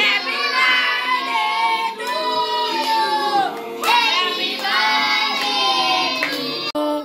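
Children singing together in long held notes, with music behind them; the singing breaks off abruptly just before the end.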